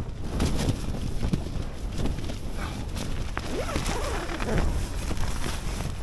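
Gale-force wind buffeting a tent: a steady low rumble with the fabric rustling and flapping in many small cracks and clicks.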